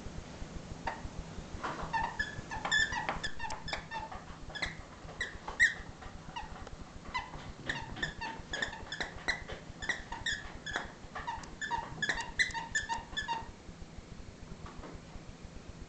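Squeaker inside a cloth dog toy squeaking over and over as a puppy chews it, dozens of short, high squeaks in quick runs that stop a couple of seconds before the end.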